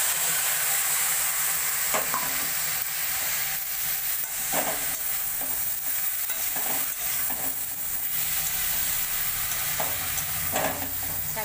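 Pumpkin leaves and stems sizzling as they stir-fry in a metal kadai, with a steady hiss and a metal spatula scraping the pan several times as it turns the greens.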